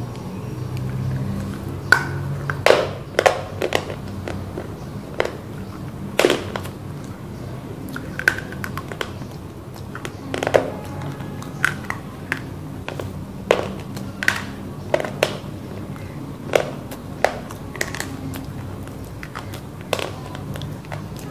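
Crunchy bites and chewing of hard roasted black clay (mitti). Sharp, irregular crunches come every second or so, over a low steady hum.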